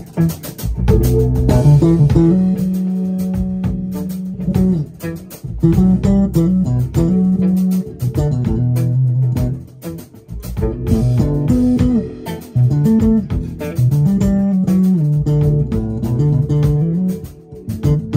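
Live band playing funk-jazz: an electric bass guitar plays a prominent melodic line of held and sliding notes, over drums and electric guitar.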